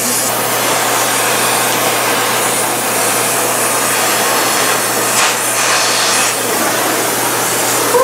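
Oxy-fuel cutting torch running with a steady hiss as it cuts through rusted truck bed bolts.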